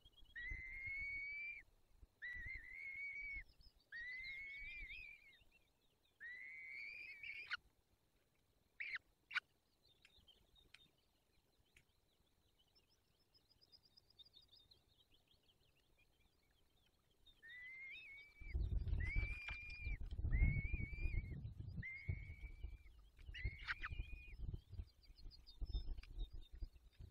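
Peregrine falcon calling: a run of drawn-out calls about a second long, repeated every second or so. Two-thirds of the way in, heavy thumping and rustling on the nest sets in under more of the same calls as the adult falcon arrives over its chicks.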